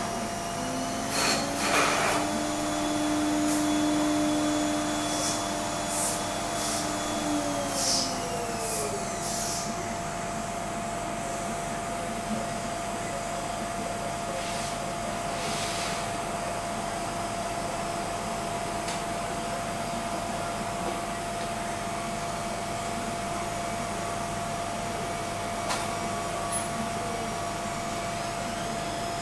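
Deckel Maho DMC 60 U machining centre running with coolant spraying in the work area: a steady hiss and hum with a constant whine. A second, lower whine holds for several seconds and then falls away about eight seconds in, and sharp ticks come now and then.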